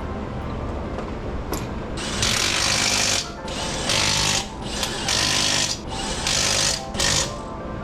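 Impact wrench running lug nuts onto a wheel in repeated short bursts, about one a second, starting about two seconds in, over background music.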